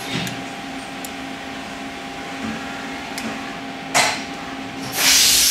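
Small clicks of metal parts being handled while the valve cap and bushings go back onto a Jupiter-5 coil-over shock, with a sharper click about four seconds in, over a steady background hum. A loud hiss starts near the end.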